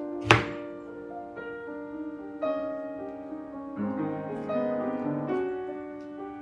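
Piano background music, slow notes held and changing every second or so. One sharp knock sounds about a third of a second in, louder than the music.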